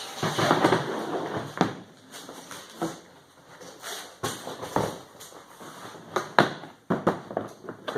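Hard plastic rifle case being handled: rustling at first, then irregular sharp clicks and knocks of hard plastic.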